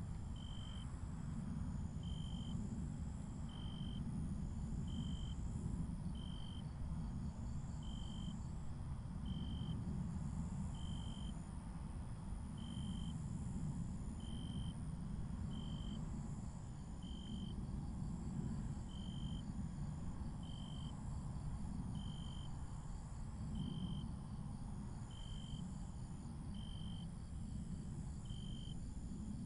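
Insects chirping over a steady low rumble, like an outdoor night ambience. One short chirp repeats evenly about every second and a half, with longer, higher-pitched calls above it.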